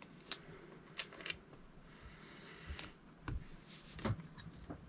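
Scattered light clicks and handling noise from hands working the wires and axle of a reassembled electric-scooter hub motor wheel, about half a dozen small ticks at irregular moments.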